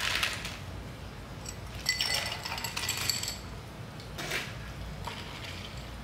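Ice cubes dropped into a glass mixing glass, clinking and ringing about two seconds in, followed by a bar spoon starting to stir the ice with light, faint clinks near the end.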